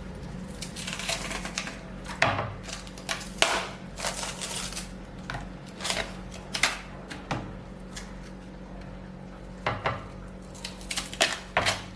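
Irregular knocks and crisp snaps as the outer layers of a banana stem are stripped away, about a dozen sharp sounds at uneven intervals.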